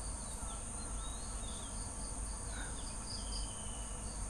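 Crickets chirring steadily in the background: a constant high trill, with a few faint short higher chirps over it.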